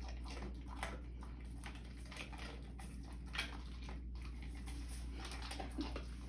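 A dog eating small treats off the floor: faint, irregular crunches and clicks of chewing and snapping up treats, over a steady low hum.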